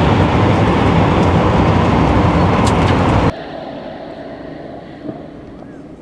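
Loud steady rushing roar of wind and road noise from the Rimac Nevera electric hypercar at speed, with no engine note, cutting off abruptly about three seconds in. After that the car is heard faintly, fading away as it runs off down the drag strip.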